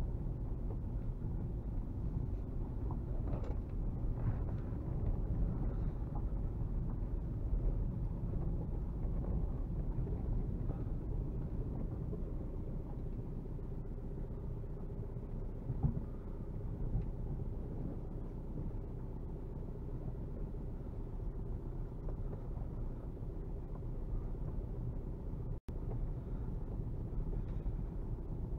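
Inside the cabin of a VW Golf Mk4 with a 1.9 TDI four-cylinder turbodiesel: a steady low rumble of the engine and the car moving over a rough dirt track, with a small knock about sixteen seconds in and a split-second cut in the sound near the end.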